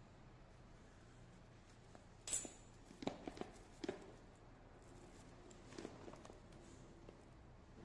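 Handling noise from a cellophane-wrapped smartphone box being picked up and turned in the hands: a short rustle a little over two seconds in, then a few light clicks and taps, and softer handling sounds near the end.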